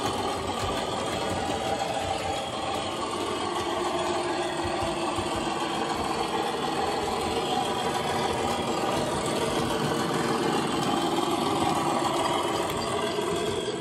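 Sound-fitted model Class 37 diesel locomotive playing a steady diesel engine sound through its small onboard speaker as it runs.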